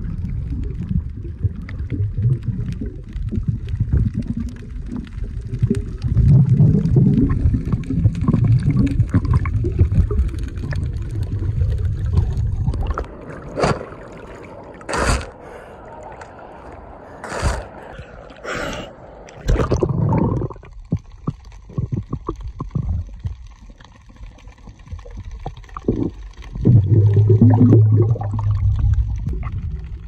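Sea water churning and gurgling around a camera held underwater, a muffled low rumble. About halfway through it breaks the surface with several sharp splashes, then goes quieter.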